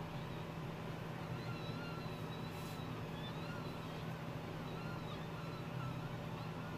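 Hot-air rework station blowing steadily on the phone's logic board to melt the solder under a fluxed IC, a constant hum with an even hiss over it.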